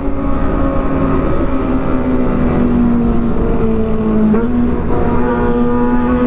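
Sport motorcycle engine running at steady part throttle, heard from the rider's seat over wind and road noise. Its note sags slightly as the bike slows, breaks briefly about four seconds in as it shifts down from fifth to fourth gear, then climbs again.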